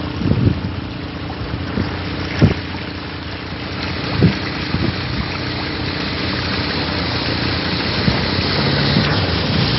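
ATV engines running as quad bikes ride through a shallow stream, with water rushing and splashing around the wheels. A few short thumps stand out, and the sound grows louder as the nearest quad bike comes up close near the end.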